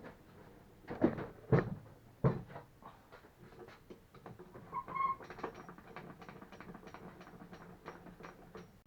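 Three sharp knocks in quick succession, then a short pitched squeak and a steady run of light ticks, about three a second.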